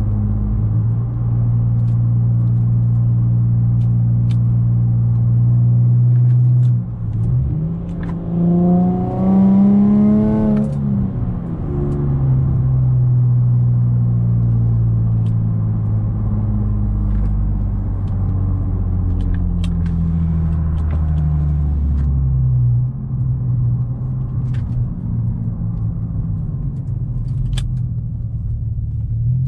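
Infiniti G35's 3.5-litre V6 droning steadily, heard from inside the cabin while cruising. About eight seconds in, the revs climb for a couple of seconds under acceleration, then drop back sharply and settle into a steady cruise again.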